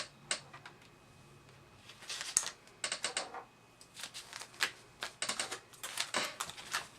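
Hands handling small plastic cosmetic items and packaging: irregular light clicks and taps with short rustles, mostly from about two seconds in.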